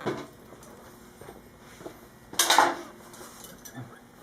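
Metal tools and motorcycle parts clinking and scraping as they are handled: a clank at the start and a louder clattering scrape about two and a half seconds in, with light ticks between.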